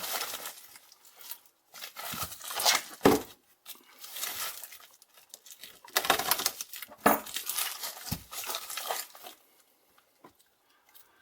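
A mail package being torn open and crinkled by hand, in irregular rustling bursts that stop about nine seconds in, leaving a few faint clicks.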